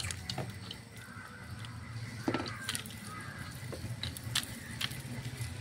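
Low steady mechanical hum with scattered light clicks and knocks.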